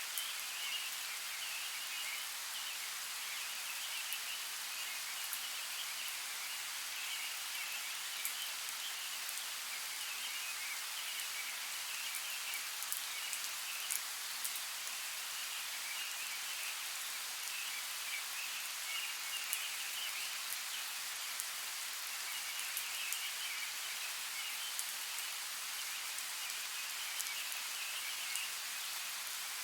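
Steady rainfall, an even hiss with scattered sharp drop ticks. Behind it a high chirring chorus rises and fades in spells of a few seconds.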